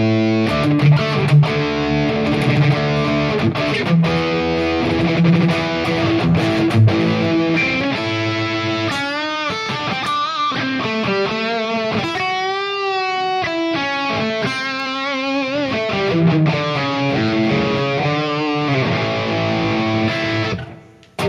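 High-gain distorted electric guitar played through a Headrush Prime modeler's Soldano amp preset: riffs, then a single-note lead line with wide vibrato and bends from about nine seconds in, then riffing again, cutting off just before the end.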